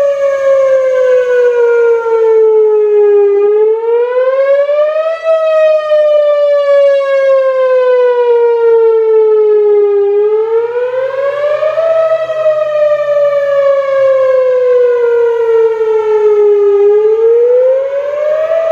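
Whelen Vortex R4 rotating electronic tornado siren sounding its full wail for a monthly test. It is loud, and its single tone rises over about two seconds, then slides slowly down over about five, in a repeating cycle about three times.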